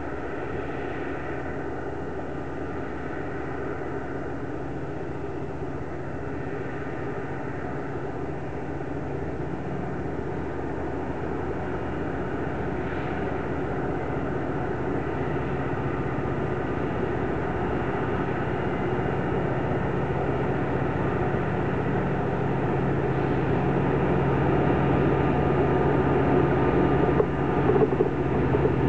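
A VIA Rail F40PH-2 diesel locomotive, its EMD two-stroke V16 engine running steadily as the passenger train approaches, growing louder throughout. Near the end a few sharp clacks of the wheels on the rails come in as it draws close.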